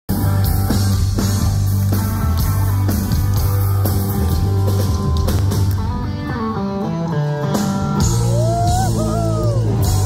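Live rock band playing loud, with electric guitars and a drum kit; the drum hits land about once a second. A falling run of notes comes about six seconds in, followed by notes that bend up and down.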